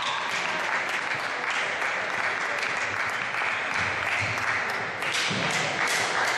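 Spectators applauding after a point is won in a table tennis doubles match; the clapping grows louder again about five seconds in.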